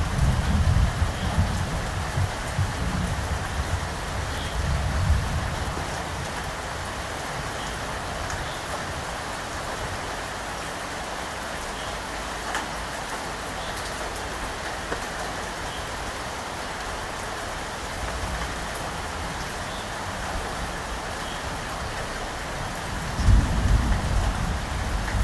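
Steady rain falling, with low rolls of thunder rumbling through the first few seconds and again near the end.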